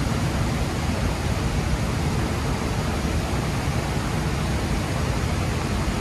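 Steady rushing roar of a large waterfall, Sandan-daki, running at high volume with rain and snowmelt.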